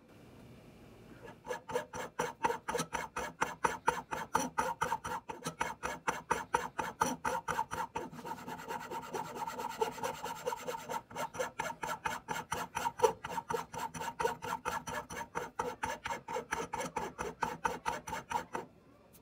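Quick, rhythmic back-and-forth rasping strokes of a hand tool working a piece, about four strokes a second, running smoother and more continuous for a few seconds in the middle, then stopping near the end.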